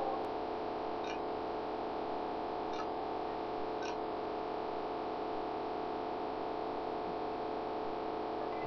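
Steady electrical hum, several held tones over a low hiss, with a few faint ticks in the first four seconds.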